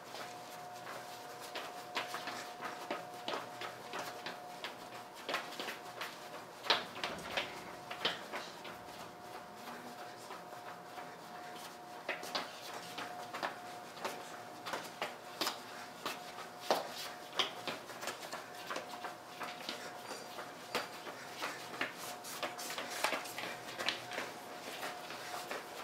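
A dancer's sneakers stepping, stamping and scuffing on a hard storage-room floor: irregular taps and knocks, several a second, over a steady faint tone.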